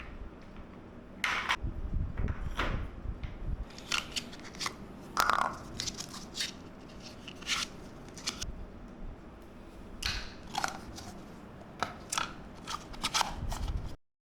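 Irregular plastic clicks, knocks and crinkling of gaming-chair parts being handled and fitted: the gas lift and its plastic cover going onto the wheelbase. The sound stops abruptly near the end.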